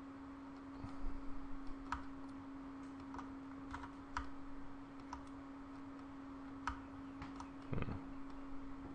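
Computer mouse and keyboard clicking irregularly, about a dozen short clicks, with one duller knock about eight seconds in. A steady low electrical hum runs underneath.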